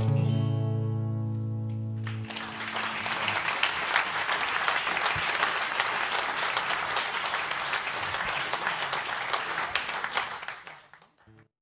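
The final guitar chord of a song ringing out for about two seconds, then audience applause that fades away near the end.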